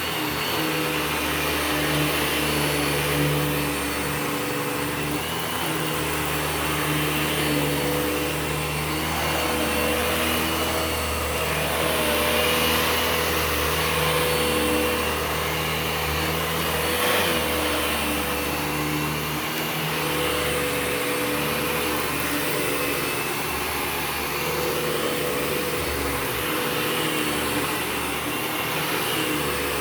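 Eureka TheBoss 4D vacuum cleaner running steadily: a constant motor hum and airflow rush whose pitch wavers slightly now and then.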